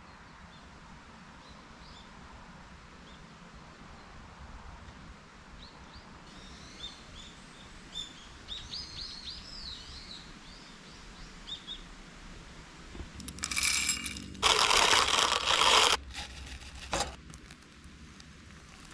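Outdoor ambience with small birds chirping in short runs of calls for a few seconds. Near the end comes a loud burst of noise lasting about two seconds, then a single click.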